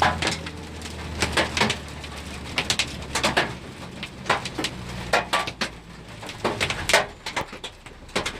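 Golf-ball-sized hailstones hitting the truck, a run of irregular sharp knocks of varying loudness, over a low steady hum from the truck's engine.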